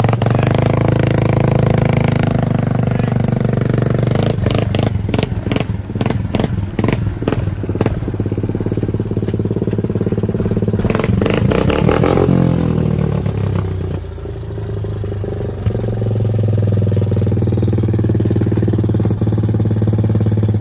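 Small single-cylinder ATV engine running and revving, with a run of clattering knocks over it; about twelve seconds in the revs fall away and it settles to a steady idle.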